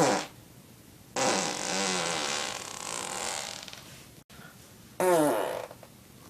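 Human farts in quick succession. A short blast opens, then comes a long pitched one lasting about three seconds that wavers and fades, and about five seconds in a shorter one falls in pitch.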